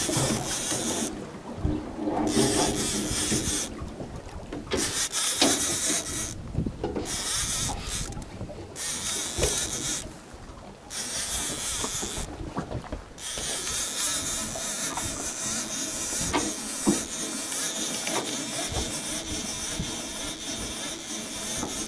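Wind blowing across the microphone on an open boat deck: a steady hiss that drops away for a second or so several times, with scattered light knocks and clicks.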